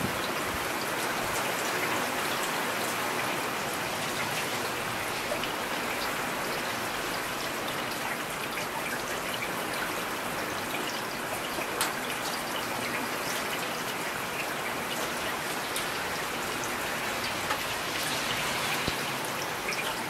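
Heavy rain falling steadily: an even hiss with scattered sharper ticks of individual drops.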